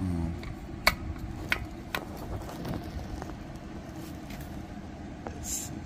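Small clicks and taps of an aluminium carburetor being handled against a small engine, three sharp clicks in the first two seconds and a few fainter ticks after, over a steady low background rumble. A short hiss comes near the end.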